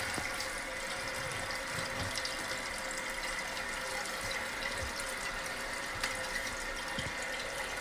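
New fill valve in a Toto one-piece toilet tank running: water hissing steadily through the valve and spraying from its refill hose into the tank, with a faint steady whine.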